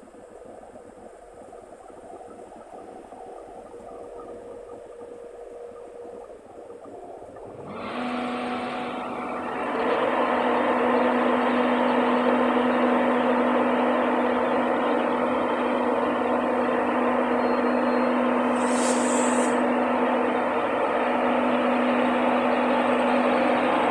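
Class 91 electric locomotive standing at the platform. About eight seconds in its cooling fans and traction equipment start up, a steady hum with a rushing whirr that grows louder again about two seconds later, as the locomotive powers up before pulling away. A brief high hiss comes a little past halfway.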